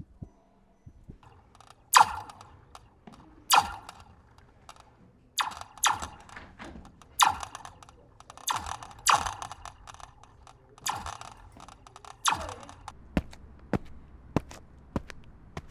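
A series of loud, sharp knocks or bangs, one every second or two, each with a brief ring, followed near the end by lighter, quicker taps about twice a second.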